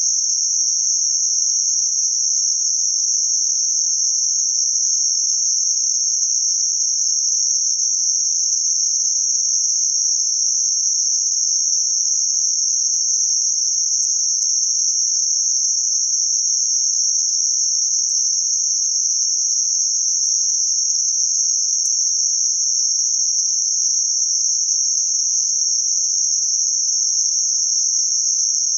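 Synthetic noise band centred around 6051 Hz: a steady, high-pitched hiss at constant level, with nothing lower in pitch.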